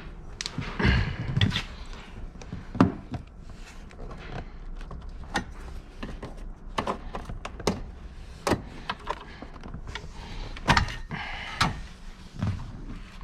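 Irregular knocks, clicks and thunks, about a dozen, with brief rustling or scraping about a second in and again near the end, from car interior trim pieces and hand tools being handled during dismantling.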